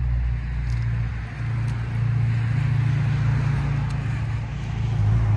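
A motor vehicle engine idling with a steady low hum, with the rushing noise of road traffic swelling in the middle.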